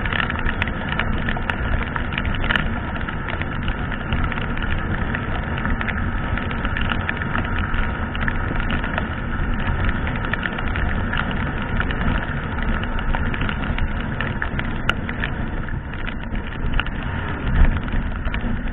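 Wind and heavy rain rushing over a helmet-mounted camera on a Yamaha sport motorcycle at speed, with the bike's engine running steadily underneath. There are a few louder gusts near the end.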